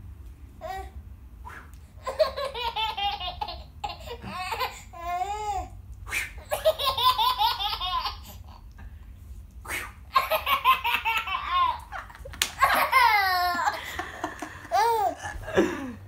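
A baby belly-laughing in repeated bouts of quick, high-pitched laughter, with short pauses between them.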